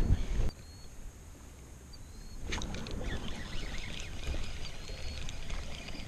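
Water splashing and sloshing at a kayak's side, irregular from about two and a half seconds in, as a hooked largemouth bass is reeled up and lifted out. A low rumble of wind on the microphone fills the first half-second.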